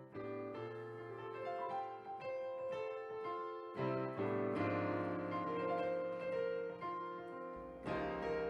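Intro music: a piano melody over sustained keyboard chords.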